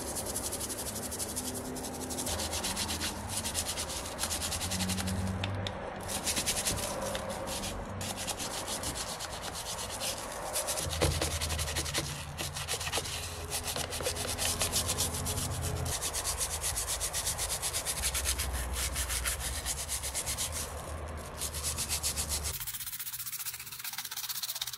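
Wet scrubbing of toy pistol parts in soapy foam, with a bristle paintbrush and with fingers rubbing the frame and grip panel. It makes a close, continuous, fast scratchy rubbing sound.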